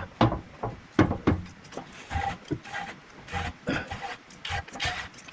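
Cheap hand-operated fluid pump worked in quick repeated strokes, pumping oil into a Jaguar MKII's rear differential, each stroke giving a short knock with a brief pitched squeak. The pump is drawing air in with the oil.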